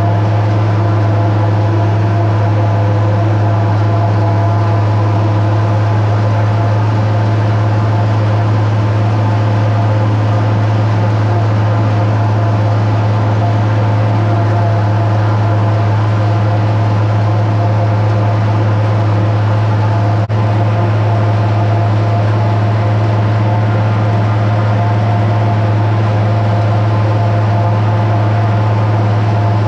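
International 1256 tractor and PTO-driven New Holland 790 forage harvester running steadily under load, chopping standing corn with a low, even drone.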